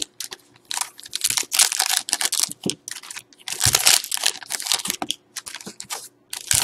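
Trading-card pack wrapper crinkling and tearing as it is opened by hand, in several separate bursts of rustling with short pauses between.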